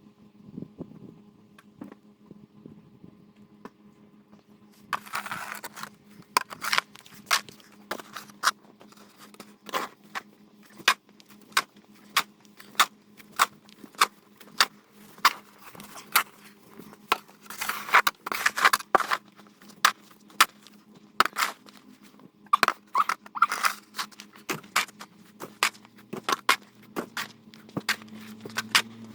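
Ice and snow crunching in sharp strokes about twice a second, broken by a few longer scrapes, over a low steady hum.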